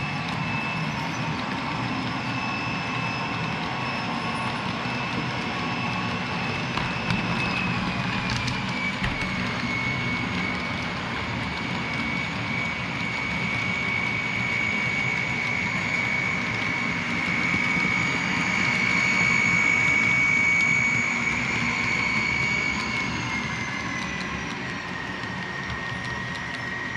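HO scale model freight train running on the layout: a low rolling rumble of wheels on track with a steady high whine from a model locomotive. The whine drops in pitch about eight seconds in and again near the end, and is loudest a little past the middle.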